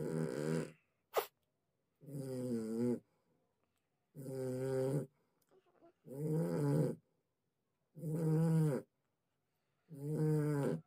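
A snoring-like pitched sound repeating very evenly about every two seconds, each lasting under a second, with a single sharp click about a second in.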